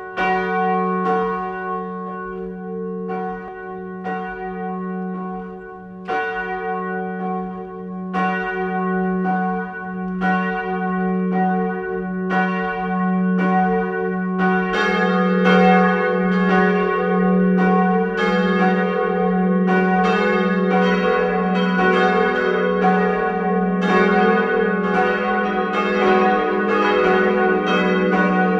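Four-bell full peal of swinging bronze church bells tuned F♯–G♯–B–D♯ (Perner, 1981), ringing with overlapping strokes. The bells come in one after another, so the peal grows fuller and louder over the first twenty seconds or so until all are swinging together.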